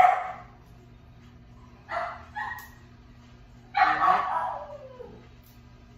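A dog barking in separate bursts: one sharp bark at the start, two short ones about two seconds in, and a longer bark near four seconds in that trails off falling in pitch.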